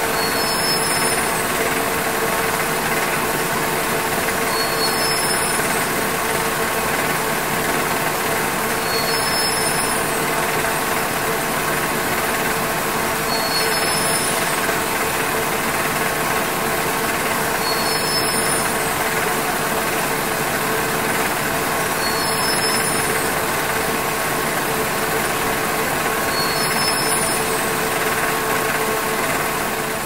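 Hattersley warping machine in a textile mill running steadily: an even mechanical clatter and hiss with a constant whine.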